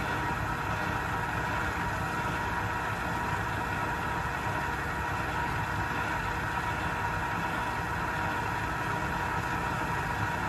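Electric stand mixer running steadily, beating flour into cookie dough: a constant motor hum with a steady whine.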